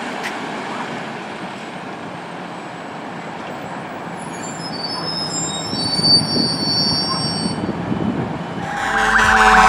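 Fire engine pulling away, its engine and tyres running with road noise, then a high brake squeal about four seconds in that lasts about three seconds. Music starts just before the end.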